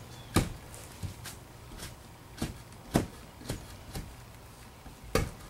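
A 2x4 tamping sand down around a wooden fence-style post in its hole: a string of dull, irregular thuds, roughly one every half second to a second, the hardest about three seconds in.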